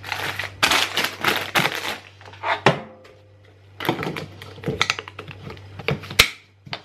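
Packets rustling and knocking as they go into a glass food container, then its plastic clip-lock lid is pressed on and the latches snapped shut: a run of sharp clicks, the loudest near the end.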